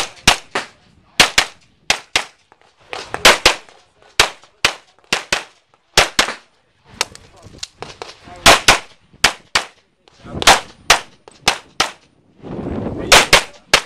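Semi-automatic pistol fired in rapid pairs of shots, a dozen or so pairs with short gaps between them, ending in a quick string of three.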